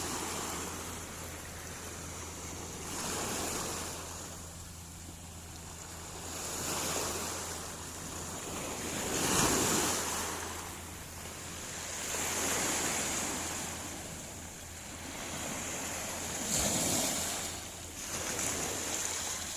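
Sea waves washing in slow swells that rise and fade about every three seconds, over a steady low hum.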